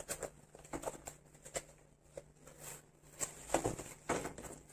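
Cardboard packaging being handled and opened: scattered short rustles, scrapes and knocks as the box and its cardboard insert are pulled apart, busiest near the end.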